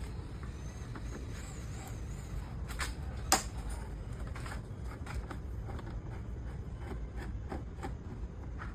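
A few sharp clicks and knocks from hands working on a dismantled scooter, the loudest about three seconds in, with smaller ticks scattered through, over a steady low rumble.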